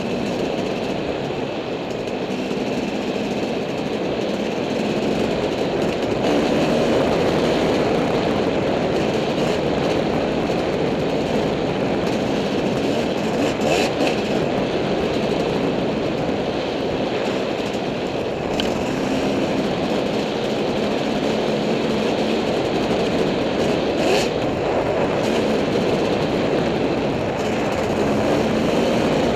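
Dirt bike engine running as the bike rides along rough singletrack, heard through a helmet-mounted camera with steady wind and rattle noise. A few short sharp knocks stand out, the bike hitting bumps or brush.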